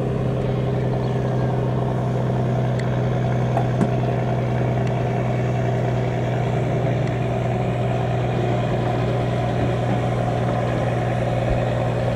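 Fishing boat diesel engine running steadily, a continuous drone at an even pitch.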